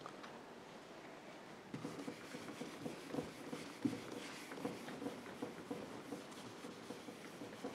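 Handheld whiteboard eraser rubbing across a whiteboard, a faint run of irregular scrubbing strokes starting about two seconds in.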